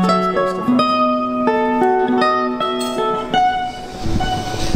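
Nylon-string classical guitar played live by a street busker: a brisk fingerpicked melody of single notes over a bass note. Near the end the playing fades and a low rumble comes in.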